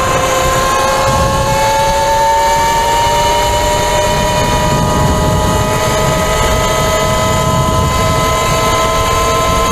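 72-volt electric motor of an E-Ride Pro SS dirt bike whining under power, its pitch climbing slowly as the bike gathers speed, over a steady rush of wind on the microphone.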